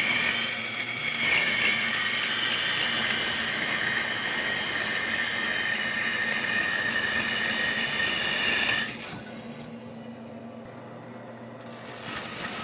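Bandsaw ripping through a cherry board, a steady whining rasp of the blade in the wood. About nine seconds in the sound drops sharply to a much quieter level.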